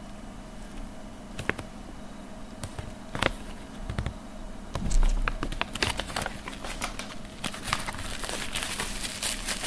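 Packaging being handled and unwrapped: a few light clicks, a low thump about five seconds in, then steady crinkling of plastic wrapping from about six seconds on.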